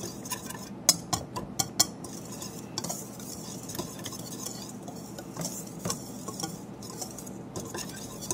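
Wire whisk stirring a dry almond-flour mix in a stainless steel bowl: a steady scratchy rustle, with sharp clicks of the wires against the metal, most frequent in the first two seconds.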